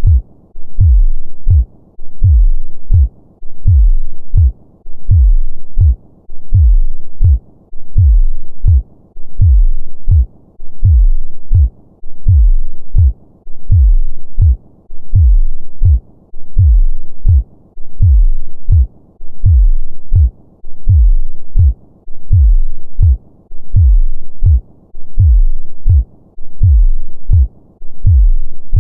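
Human heartbeat of a normal heart: deep, loud double thumps (lub-dub) repeating in a slow, steady rhythm.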